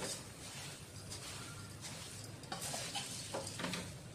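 Metal ladle stirring and tossing puffed rice in a steel kadai: a dry rustle of the grains with short scrapes of the ladle against the pan, several in quick succession in the second half.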